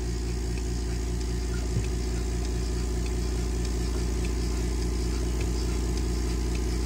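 Vevor electric milking machine's vacuum pump running steadily with a low hum, with one light knock about two seconds in.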